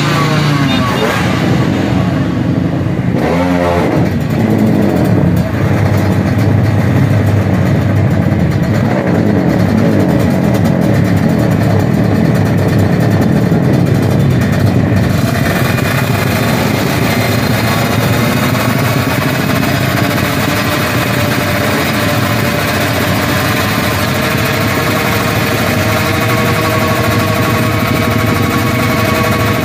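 Drag-race motorcycle engines running at the start line. They are revved up and down a few seconds in, then held at a steady high rev from about halfway through, staged for launch.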